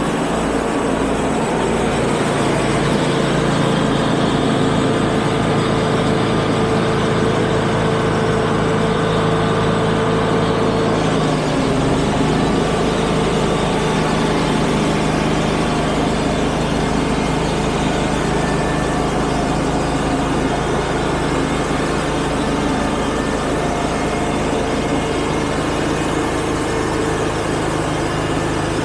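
Engine running steadily at a sawmill; about a third of the way in its low note drops and changes, as the engine's speed or load shifts, then it runs steady again.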